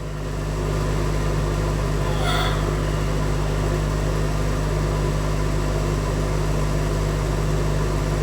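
A steady low hum with a few constant low tones, swelling in over the first second, and a faint brief higher sound about two seconds in.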